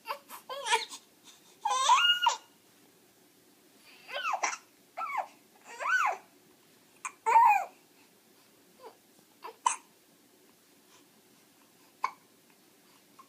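A baby babbling in short, high, wavering vocal sounds, broken by brief sharp hiccups. In the last five seconds only a few isolated hiccups are heard.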